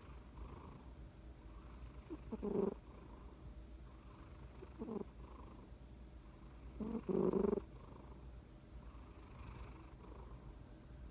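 Domestic cat snoring in deep sleep: a short raspy snore with each breath, about every two and a half seconds, the one a little past the middle the loudest.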